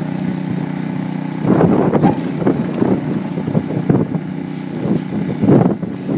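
Honda HS80 snowblower engine running steadily. From about a second and a half in, it turns louder and uneven as the machine bites into hard-packed plowed snow and throws it.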